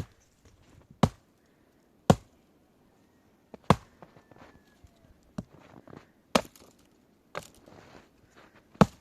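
Repeated chopping strikes, about seven sharp blows spaced a second or so apart, with softer scuffing sounds between them.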